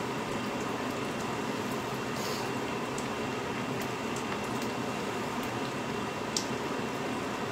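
Steady bubbling hiss of food cooking in a lidded pot on the stove, with a few light clicks, the sharpest about six seconds in.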